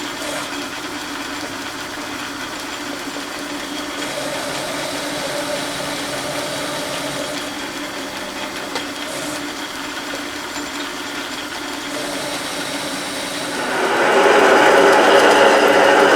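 Metal lathe running steadily with a hum and a whir while machining a part. It grows louder about three-quarters of the way through.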